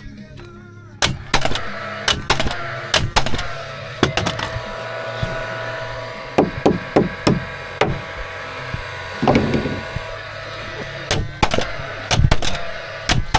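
Timber framing being nailed together: a run of sharp, irregular knocks and bangs on wood, some coming in quick clusters.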